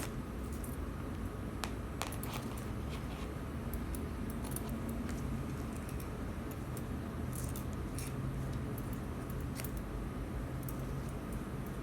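Light metallic clicks and clinks, scattered and irregular, as a small metal object is handled, over a steady low hum.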